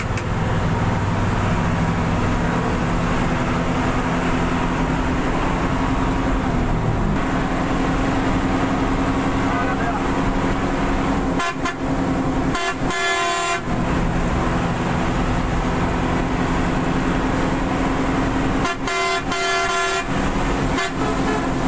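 Bus engine running steadily, heard from inside the cab, its note dropping about seven seconds in. Horn blasts sound in two bursts, several short toots a little past the middle and again near the end.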